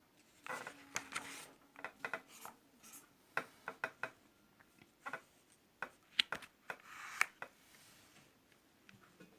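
Faint desk sounds of studying: scattered clicks and taps with short scratching strokes, as of a pen writing on paper and stationery being handled.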